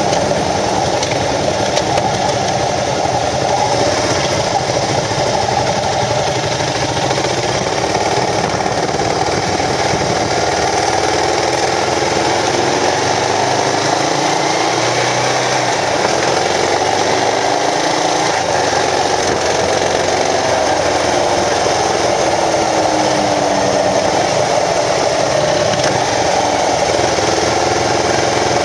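Kawasaki KLR650's single-cylinder engine running while riding, its note rising and falling as the revs change, over steady wind and road noise.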